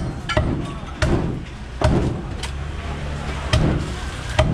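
Cleaver chopping through a giant grouper into a wooden chopping block: about seven sharp chops, spaced unevenly.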